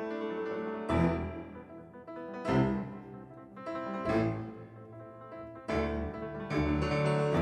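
Slow background piano music: chords struck roughly every second and a half, each ringing out and fading before the next.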